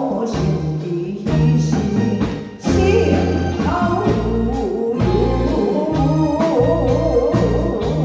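A woman singing a ballad into a microphone over a live band: drum kit keeping a steady beat, bass guitar, electric guitar and keyboard. The music briefly drops about two and a half seconds in, then the singing comes back in with a wavering vibrato.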